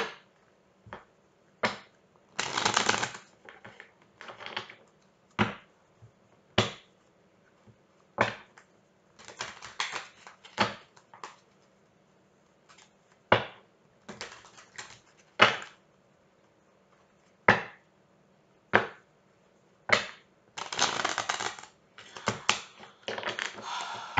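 A deck of tarot cards being handled and shuffled: irregular sharp taps and slaps of the cards, with two longer rustling shuffles, one a few seconds in and one near the end.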